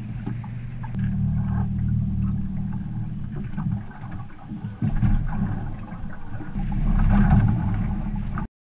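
Wind rumbling on the microphone and choppy lake water slapping an aluminium fishing boat's hull, with a few small knocks, gusting louder and then cutting off suddenly near the end.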